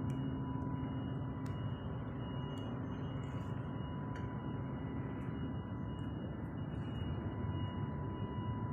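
Steady hum of running machinery with a thin high whine over it and a few faint scattered clicks.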